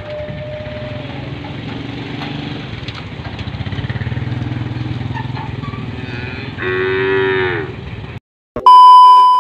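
A cow moos once, a long call about six and a half seconds in that falls in pitch at its end, over steady background noise. Near the end, after a brief dropout, comes a loud steady electronic beep.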